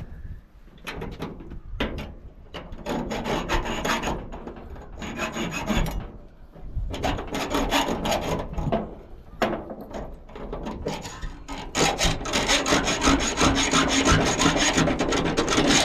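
Old rusty hand hacksaw cutting through the steel shackle of a small padlock: rasping back-and-forth strokes in runs with short pauses, turning into a steady unbroken run of strokes in the last few seconds.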